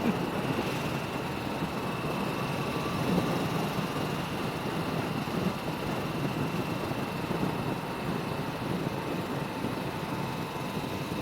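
Motorcycle running steadily at road speed, with a steady rush of wind over the microphone and a faint steady whine.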